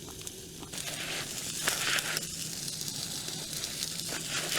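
Sirloin steak sizzling on a small backpacking gas grill, a steady sizzle with a few brief louder crackles.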